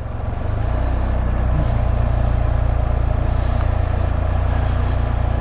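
Can-Am Spyder RT Limited three-wheeler's three-cylinder engine running at low speed as it is ridden in, building up slightly in the first half second and then holding a steady rumble.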